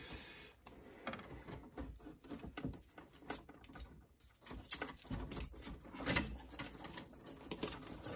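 Insulated electrical wire being pushed up through a crowded breaker panel, scraping and rustling against the other wires and the metal box, with scattered light clicks.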